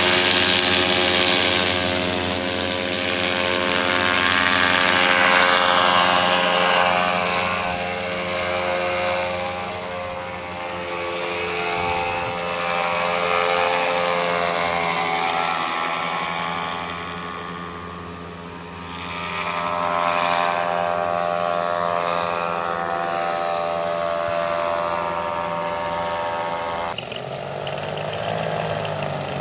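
Tandem paramotor's engine and propeller droning in flight, its level swelling and fading as it moves about; near the end the tone changes abruptly to a different pitch as the tandem comes in close.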